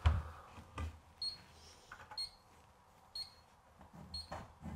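Digital spirit level giving short high beeps about once a second. A knock right at the start and a lighter one just under a second in, as the level is set against the wall.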